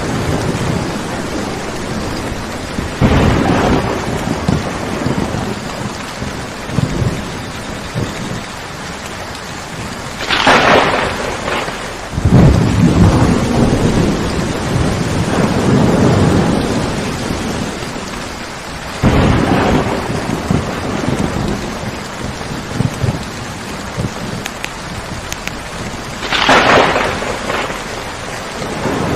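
Steady rain with thunder: several sudden claps spread through, one of them followed by several seconds of low rolling rumble.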